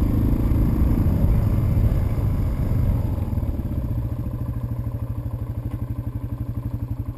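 Yamaha TW200's single-cylinder four-stroke engine running under way, then easing off about three and a half seconds in to a quieter, evenly pulsing putter as the motorcycle slows at a patch of snow on the trail.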